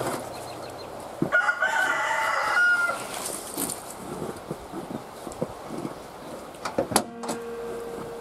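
A rooster crows once, a single long crow starting about a second in. Near the end a sharp click is followed by a steady low tone.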